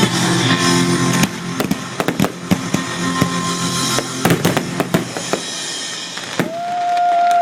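Fireworks bursting and crackling in rapid bangs over music, dying out about five seconds in. Near the end a long, steady high tone comes in.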